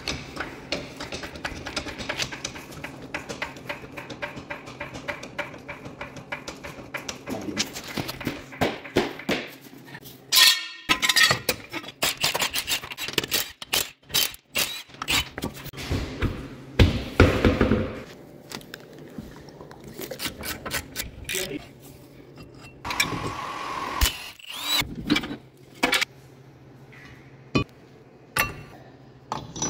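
Garage wheel work on a minivan: a fast, even run of clicks for the first several seconds, then scattered knocks and clanks and short bursts from a cordless impact wrench taking off the lug nuts.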